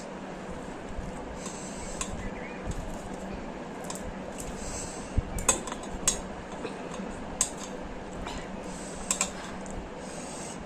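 Chopsticks clicking against a bowl of noodles while eating: a handful of sharp, irregular clicks, most of them through the middle of the stretch, with soft eating sounds between.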